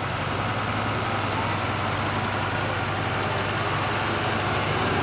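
Diesel pickup truck's engine idling steadily, a low even hum with no revving.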